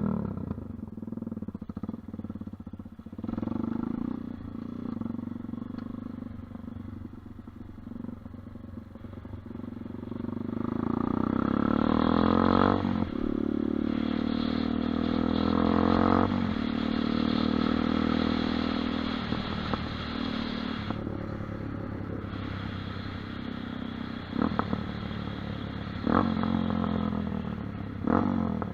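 Off-road dirt bike engine running while being ridden, the revs climbing and dropping again and again, loudest partway through, with quick throttle blips near the end.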